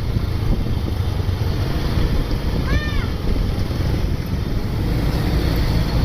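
Low, steady rumble of heavy road traffic, buses passing close, with wind buffeting the microphone. About three seconds in comes a short high whistle that rises and then falls.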